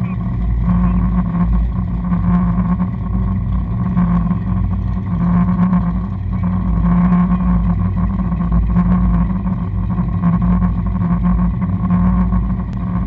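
Powerboat engines running at low speed, a steady deep drone.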